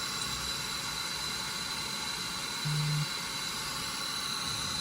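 Hair dryer blowing steadily, a continuous rushing hiss with a thin high whine over it.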